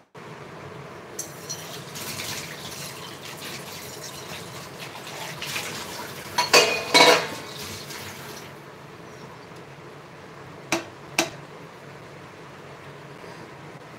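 Maggi noodle cakes cooking in boiling spiced water in a pan, with a steady bubbling hiss, while a metal spatula pushes them down and turns them. The spatula scrapes and clanks against the pan a little past halfway, the loudest moment, and taps it twice more about three-quarters in.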